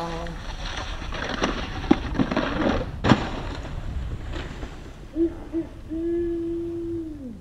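Snowboard scraping and sliding through snow, with a couple of sharp knocks from the board about two and three seconds in. Near the end a pitched tone sounds twice briefly and then holds for over a second.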